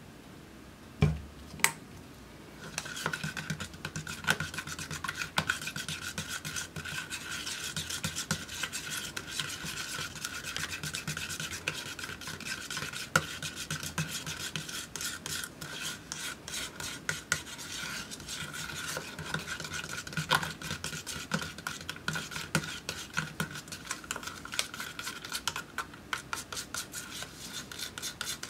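A metal palette knife stirring and scraping thick paint around the inside of a plastic cup, a continuous rapid scraping with a steady high squeak in it, as red is mixed into purple. Two short knocks come about a second in, before the stirring starts.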